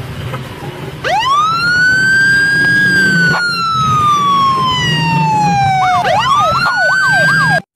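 Police car electronic siren. About a second in it wails up quickly, holds high and slowly sinks in pitch, then switches to a fast warbling yelp near the end and cuts off abruptly.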